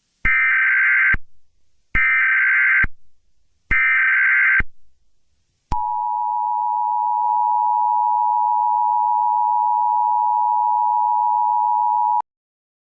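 Emergency Alert System header: three short bursts of screeching digital data tones, then the steady two-tone EAS attention signal held for about six and a half seconds before cutting off abruptly.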